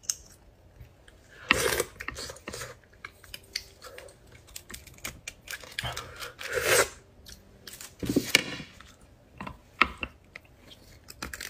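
Metal spoon clicking and scraping against beef marrow bones as marrow is scooped out, with three louder wet eating sounds of the marrow being taken into the mouth.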